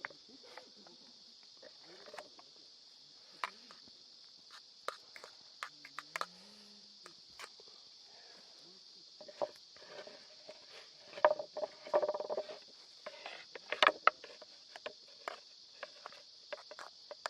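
Scattered light knocks and clicks, busiest about two-thirds of the way through, over a steady high-pitched hiss.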